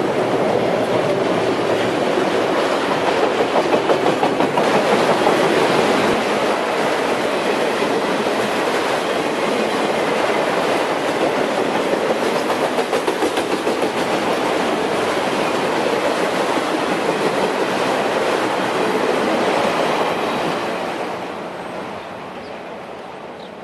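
Freight train of autorack cars rolling past, a steady wheel-on-rail noise with a rhythmic beat in places. About 20 seconds in the last car passes and the sound fades away as the train recedes.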